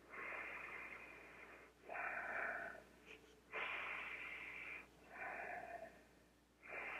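A man breathing deeply in and out through a cloth face mask fitted with a HEPA vacuum-bag filter layer, taking deliberate breaths to smell-test how well it blocks odours. There are five breathy hisses with short pauses between them, longer and shorter breaths alternating.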